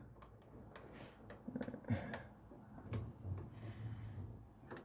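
Faint scattered clicks and knocks of metal parts being handled at a lathe as the tailstock with a centre drill is brought in.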